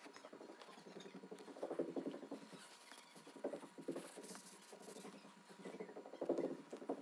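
Chinese mantis chewing on a wolf spider: soft, crackling runs of clicks from its mouthparts, in three bursts, about two seconds in, around the middle and again near the end.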